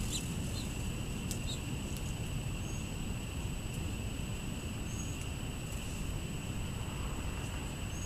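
A few short, high bird chips scattered over a steady low outdoor rumble and a constant high-pitched insect drone.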